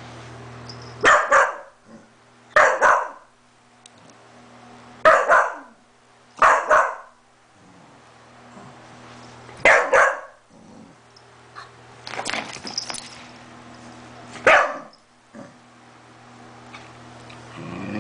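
A dog barking: about seven short, sharp barks at irregular gaps of one to three seconds, with a quicker cluster a little past halfway. A faint steady hum lies underneath between the barks.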